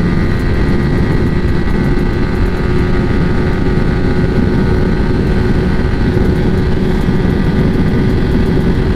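Yamaha R15 V3's 155 cc single-cylinder engine held at high revs at a top-end cruise of about 130 km/h, its note steady in pitch, under heavy wind and road rush on the rider's camera.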